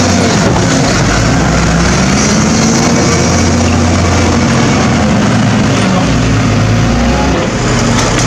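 Diesel engine of heavy construction machinery running and revving, its pitch rising and falling: a wheel loader working at the rubble, with a wheeled excavator near the end.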